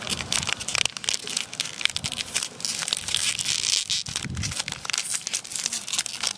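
A foil-lined plastic Oreo biscuit packet being torn open by hand, with dense, irregular crinkling and crackling of the wrapper film.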